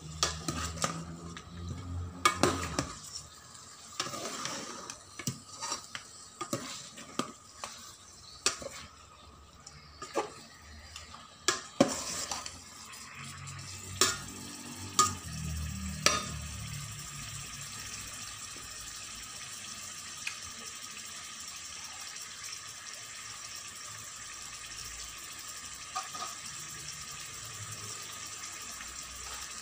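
A metal spoon scraping and knocking against an aluminium rice cooker pot while raw chicken pieces are stirred, with a steady sizzle of the chicken cooking in the pot. The spoon sounds stop about halfway through, leaving only the sizzle.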